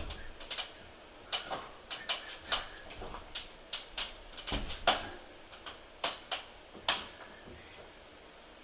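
Irregular sharp clicks and knocks of tools and parts being handled, some fifteen or more, that stop about seven seconds in.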